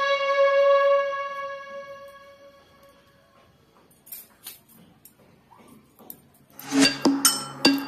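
Background music: a held note with overtones fades away over the first three seconds, then near quiet with a few faint clicks. Near the end a run of sharp metallic clinks starts over a low steady tone.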